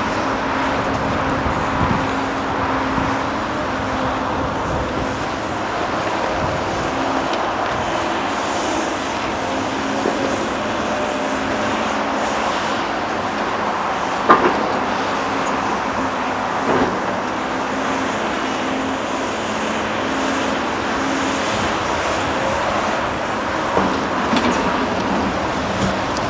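Large Caterpillar hydraulic excavator's diesel engine running steadily as it digs through broken rock, with a few sharp knocks of rock striking the steel bucket, the loudest about halfway through. Steady motorway traffic runs underneath.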